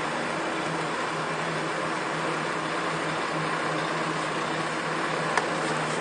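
Steady machinery drone of a ferry's enclosed vehicle deck, an even rushing noise with a constant low hum under it, broken by a single sharp click about five seconds in.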